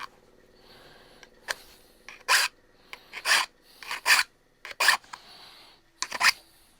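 Short, irregular hand-file strokes rasping on small metal rivets, about eight in all, filing off the burrs left from grinding them down.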